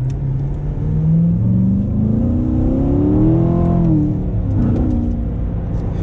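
2016 Corvette Stingray's 6.2-litre V8 under hard acceleration, heard from inside the cabin. The revs climb steadily, drop sharply at an upshift about four seconds in, then pull on at lower revs.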